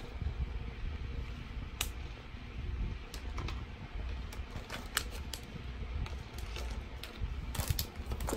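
Steady low hum with scattered light clicks and taps, about a dozen in all, as pens and stationery are handled.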